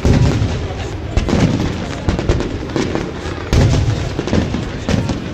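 Fireworks bursting overhead: a string of sharp bangs about a second apart over a low rumble. The biggest bang comes about three and a half seconds in.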